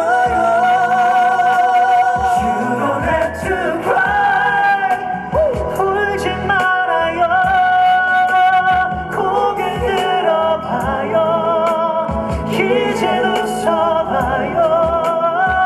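A slow ballad played through a stage sound system: male singing with wavering held notes over a continuous backing track.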